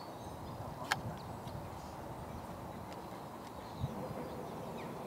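Steady outdoor background noise with faint bird chirps, broken by a sharp click about a second in and a dull thump near the four-second mark.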